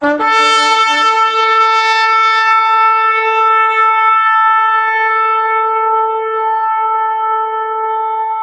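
A shofar (ram's-horn trumpet) sounding one long, steady blast. It opens with a brief lower note and then holds a single pitch.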